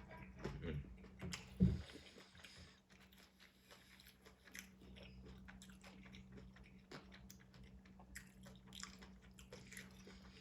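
Close-up mouth sounds of a man eating a roast beef and pastrami sub: biting and chewing, with wet smacks and small clicks, and one louder thump at the start. A steady low hum runs underneath.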